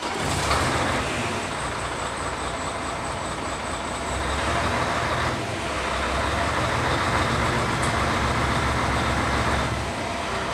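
Mercedes-Benz Actros truck's diesel engine running just after starting on a newly replaced fuel pump. The engine gets louder with a heavier rumble about four seconds in and again from about six seconds until near the end, then settles back.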